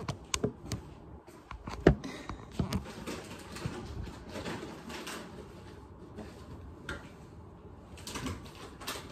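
Handling noise from a phone camera being moved about on a bed: a series of knocks and clicks with rubbing and bedding rustle, the sharpest knock just under two seconds in.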